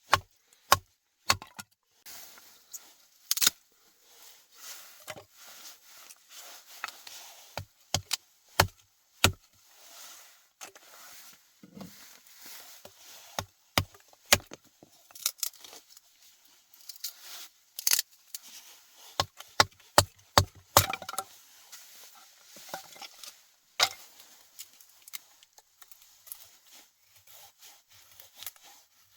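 Many irregular sharp knocks and cracks, with quieter rustling and handling noise between them.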